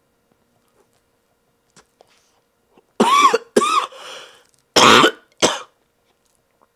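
A man coughing hard on a lungful of smoke from a hand-rolled cigarette: four loud coughs in two pairs, the first pair about three seconds in and the second just over a second later.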